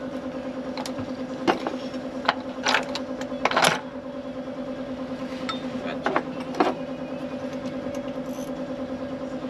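Volvo VNL760 truck's diesel engine idling with a steady, evenly pulsing hum. Several sharp knocks and short noisy bursts from work in the engine bay come over it, the loudest about three and a half seconds in.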